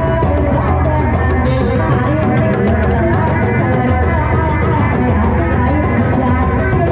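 Loud, continuous music of a reak / kuda lumping troupe: a melodic line over steady drumming.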